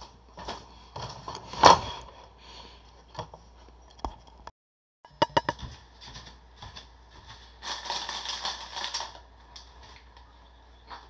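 Household handling noises: scattered clicks and knocks, with one sharp knock about two seconds in, then a plastic bread wrapper crinkling for about a second and a half near the end.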